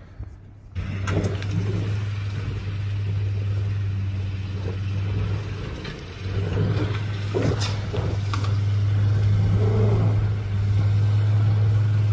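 Hummer H3 engine pulling hard under load as the SUV climbs a steep rocky trail, easing off briefly about six seconds in and then picking up again. A few sharp knocks from tyres and underbody on rock, the loudest about seven and a half seconds in.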